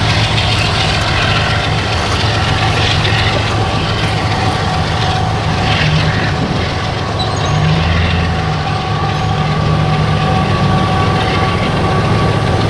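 Diesel-electric freight locomotive on an empty CSX coal train running with a steady low engine drone, with the rumble of empty hopper cars rolling over the rails.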